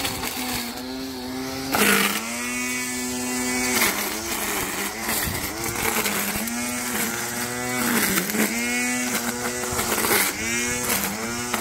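A small engine runs steadily, its pitch dipping briefly every couple of seconds as if under load. There is a short crackling noise about two seconds in.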